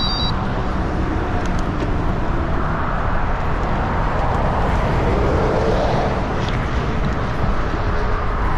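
Steady rush of passing traffic on the dual carriageway next to the cycle path, mixed with wind rumbling on the bike-mounted camera's microphone as it rides along. The traffic swells louder about five to six seconds in as a vehicle goes by.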